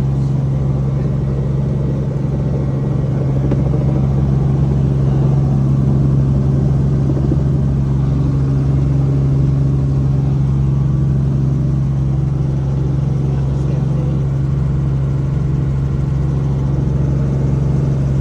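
Helicopter in flight heard from inside the cabin: a loud, steady engine and rotor noise with a strong low hum that does not change.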